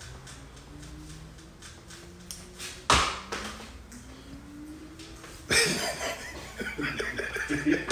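A single sharp smack about three seconds in, then a man laughing loudly over the last couple of seconds. A faint rising tone sounds twice before the laugh.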